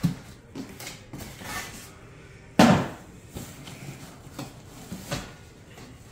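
Cardboard box and packing material rustling as a boxed boat propeller is handled, with several knocks; the loudest is a sharp knock about two and a half seconds in.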